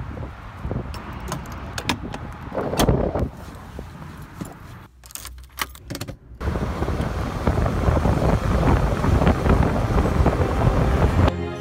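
Scattered clicks and rattles, then, after a short lull, the steady rush of a car driving at speed: tyre and wind noise.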